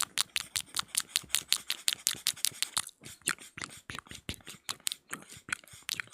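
Close-miked ASMR mouth sounds: rapid clicks of tongue and lips, about seven a second, with a short pause about halfway through and sparser clicks after it.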